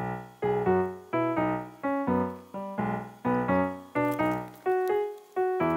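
Background music on a keyboard: short chords struck about every half second, each dying away before the next.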